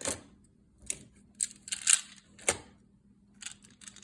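Plastic magnetic building tiles (Magna-Tiles) clicking and clacking as they are handled and snap together, in a string of irregular sharp clicks.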